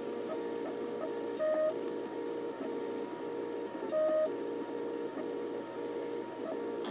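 MakerBot dual-extruder 3D printer printing: its stepper motors whine in short pitched notes, about three a second, as the print head moves back and forth laying down plastic. A louder, higher note sounds about a second and a half in and again about four seconds in.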